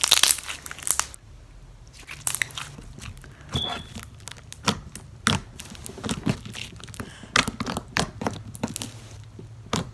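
Pink slime with beauty-blender sponge chunks being stretched and squished between the hands, giving irregular wet clicks and pops, loudest in the first second.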